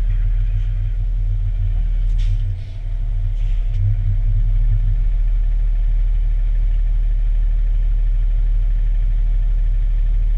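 Fire engine driving at highway speed, heard from inside the cab: a steady low rumble of engine and road noise, dipping briefly about two and a half seconds in.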